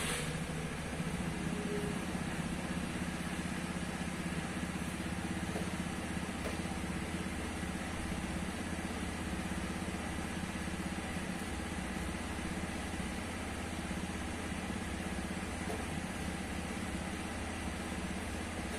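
2013 Honda Scoopy scooter's single-cylinder engine idling steadily just after a cold start.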